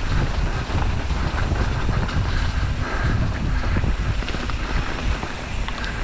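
Wind buffeting a helmet-mounted camera's microphone on a fast mountain-bike descent, over a steady low rumble of tyres on a wet dirt trail.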